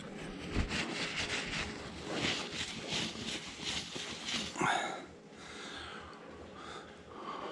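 A paper shop towel rubbed back and forth over the face of a diesel cylinder head, quick scrubbing strokes about four a second that stop about five seconds in.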